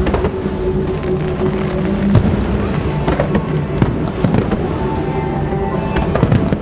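Aerial fireworks bursting and crackling in rapid succession, the loudest bang about two seconds in, over music with steady held notes.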